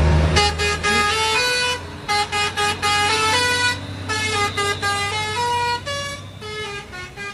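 Lorry's musical telolet horn playing a quick tune of short stepped notes, starting about half a second in, over a low idling engine.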